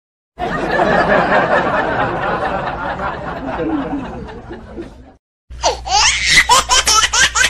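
Laughing sound effects: a dense laughter of many voices together that fades away after about five seconds, then, after a short gap, a single high-pitched laugh in quick repeated bursts.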